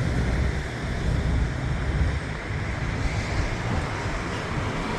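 Steady road and wind noise of a moving car: a low rumble with a hiss over it.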